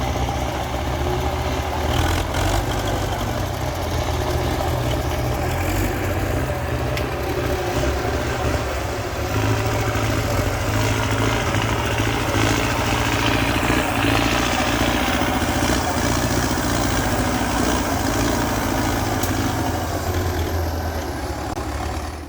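Diesel engine of an MTZ Belarus 892.2 tractor running steadily, getting a little louder about nine seconds in.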